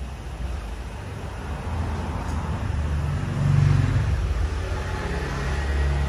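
A low engine rumble that swells to a peak about halfway through and then eases, like a motor vehicle passing.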